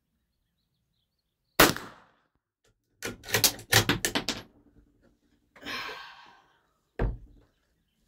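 A gunshot about a second and a half in drops a feral hog at a feeder. It is followed by a rapid flurry of sharp noises and a short rushing sound, then a second, quieter shot about seven seconds in.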